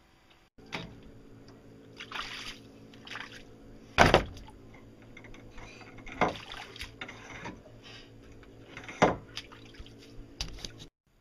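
PVC pipe support poles of a boat's solar-panel canopy knocking and rattling in their fittings as a pole is shaken by hand. There are two loud knocks and several shorter rustling, scraping bursts, over a steady hum.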